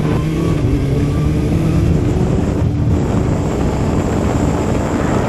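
Motorcycle riding at speed: a steady engine note for about two seconds, then a rough rushing noise that covers it for the rest of the time.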